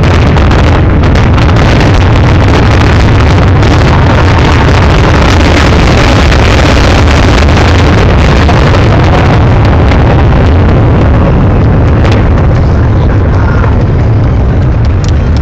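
Aerial fireworks bursting in quick succession, their booms and crackles running together into a continuous loud rumble that keeps the microphone near full scale. The high crackle thins out about twelve seconds in.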